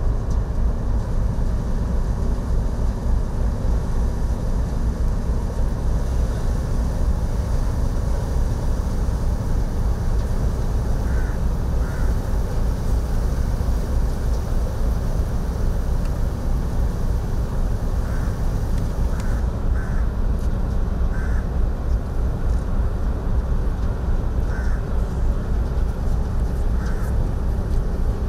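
Steady low rumble and noise, with a few short crow caws over it in the second half.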